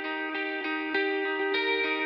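Background instrumental music: a melody of short pitched notes changing several times a second over a steady level.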